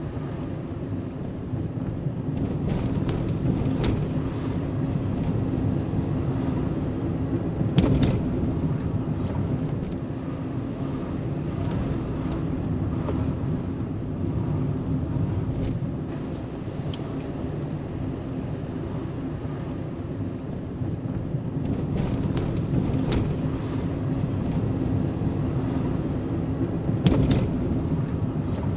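Car driving along a street, heard from inside the cabin: a steady hum of engine and tyre noise, with a few sharp knocks, the loudest about eight seconds in and another near the end.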